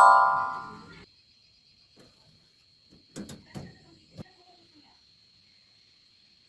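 A bright chime fades out over the first second, followed by a few soft knocks and clicks about three to four seconds in, over a faint steady high-pitched tone.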